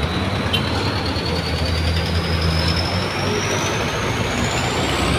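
Diesel engine of a loaded cargo truck running under load as it drives past close by, with a steady low drone. A thin high whistle climbs steadily in pitch throughout.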